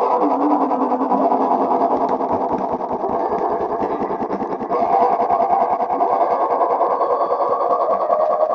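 Loud, continuous, heavily distorted buzzing with a fast crackle running through it.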